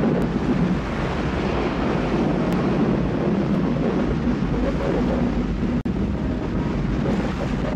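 A steady rushing, rumbling noise of water and wind, the sound of a ship's hull breaking the surface with water pouring off it. It cuts out for an instant about six seconds in.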